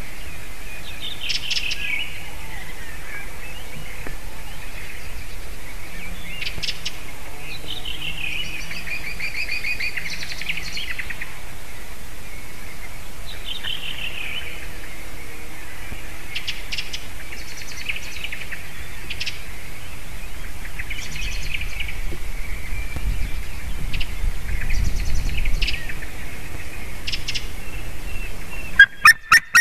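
White-tailed eagle calling: the female whining from above the nest, thin descending calls repeated every few seconds with brief chirps between. Near the end a loud, rapid series of yelping calls starts, about four a second.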